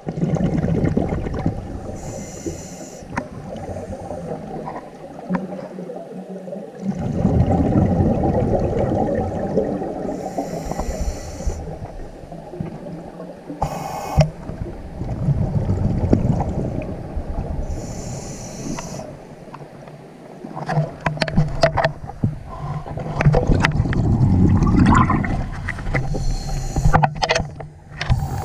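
Scuba diver breathing through a regulator, heard underwater: a short hissing inhale about every eight seconds, each followed by a long gurgling stream of exhaled bubbles. Clicks and knocks of the camera and dive gear being handled come in the last few seconds.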